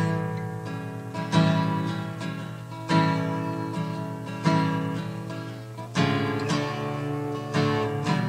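Acoustic guitar strumming chords, one about every second and a half, each ringing out before the next, played back from a freshly cut lacquer disc on a turntable.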